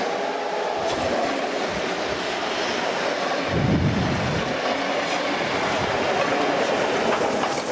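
A steam-hauled train of passenger carriages rushing past close by, wheels clattering over the rails with a steady loud rush, with a brief low rumble about halfway through; the K-class steam locomotive and its tender come by near the end.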